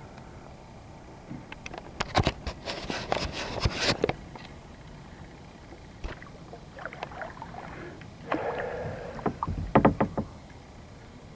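Kayak paddling: two bouts of paddle strokes, with splashing and sharp knocks, the first about two seconds in and the second near the end.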